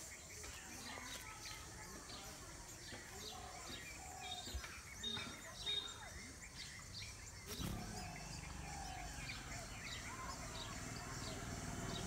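Many short, high chirps of small birds, with common tailorbird nestlings begging as an adult feeds them at the nest; a few clearer whistled notes come about four to six seconds in. A knock about seven and a half seconds in, then a low rumble.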